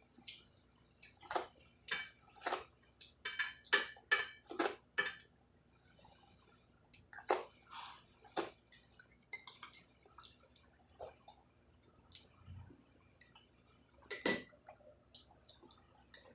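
Close-up eating sounds: irregular wet mouth smacks and chewing clicks, thick in two runs, with a sharper click about fourteen seconds in.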